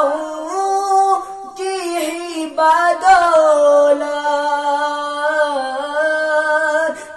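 A young man singing an Urdu naat unaccompanied, drawing the words out in long held notes that bend slowly in pitch, with a couple of short breaks for breath.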